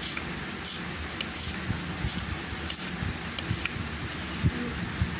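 Broad bean pods being cut, a short crisp cut about every three quarters of a second, with light knocks between the cuts.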